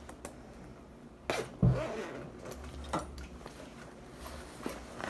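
A person's sudden, explosive burst of breath like a sneeze, about a second and a half in, with a few small clothing rustles and clicks around it.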